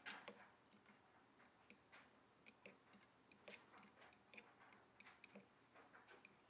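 Faint, irregular light clicks of a metal knitting tool tapping and scraping against the metal pegs of a knitting loom as stitches are lifted over, several a second.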